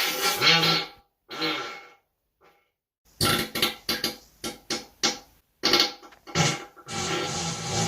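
A person farting: a burst and a shorter one, then after a brief pause a quick string of short bursts that runs into a longer stretch near the end.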